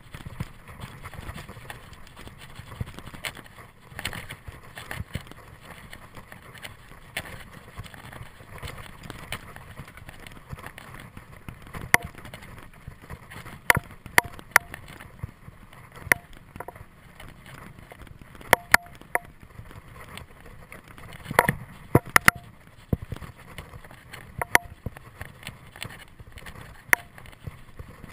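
Mountain bike rolling along a dirt singletrack trail: steady rolling noise with scattered sharp rattles and knocks from the bike as it goes over bumps, several in quick clusters.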